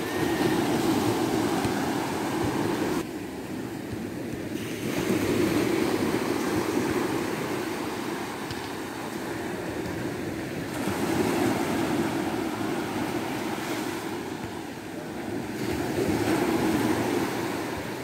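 Small sea waves breaking and washing up a sandy beach, the surf rising and falling in four swells about five seconds apart.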